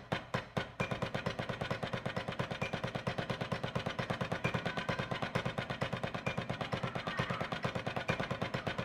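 Wooden drumsticks striking a rubber drum practice pad in a fast, even stream of strokes: a hand-speed exercise on the pad.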